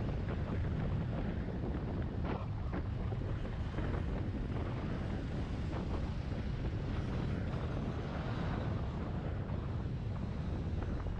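Wind buffeting the microphone of a moving motorcycle, a steady low rumble. The Yamaha XT250 Serow's single-cylinder engine and tyre noise run underneath.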